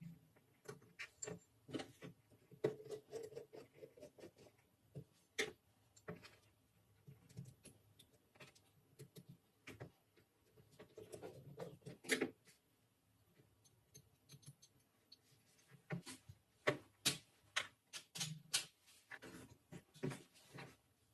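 Irregular clicks, taps and light knocks of metal rifle parts being handled and fitted, with a few short scrapes.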